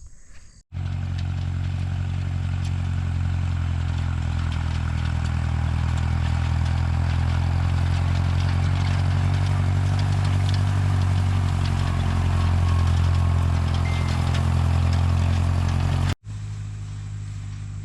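Vintage John Deere tractor engine running steadily, close and loud, at an even speed with a slight rise in level partway through. Near the end it cuts suddenly to the same kind of engine sound, quieter.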